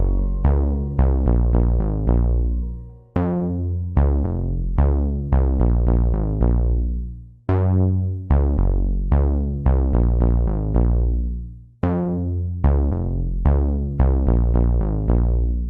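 Electronic background music: synthesizer notes over a low bass and drum-machine beat, in phrases that restart with a strong attack about every four seconds. The last phrase fades away near the end.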